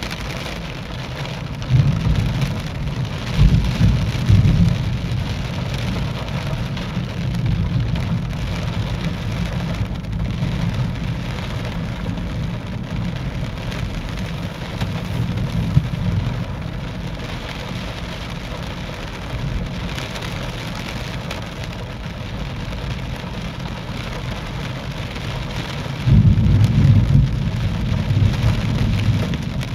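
Steady thunderstorm rain with deep rumbles, loudest about two to five seconds in and again near the end.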